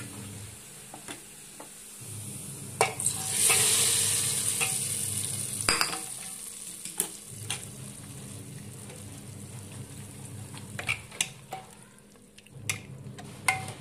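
Hot tadka of fried onions and red chillies in oil poured into cooked black masoor dal, sizzling with a sudden loud hiss about three and a half seconds in that fades over a couple of seconds. Spoon scrapes and knocks on the metal pans come throughout.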